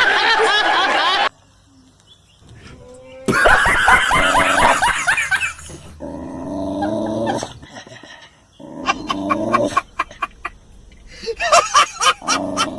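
A dog vocalizing in several separate bursts, with short gaps between them.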